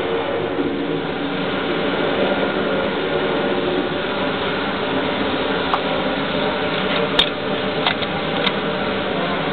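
Steady fan-like hum of ventilation, with four light clicks in the second half.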